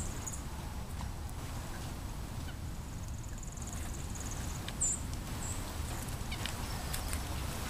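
A small songbird giving short, very high chirps, two close together about five seconds in, over a steady low outdoor rumble.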